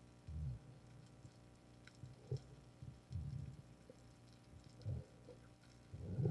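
Muffled underwater sound picked up through a camera's waterproof housing: several low, dull thumps from the diver's movements, with faint scattered clicks above them.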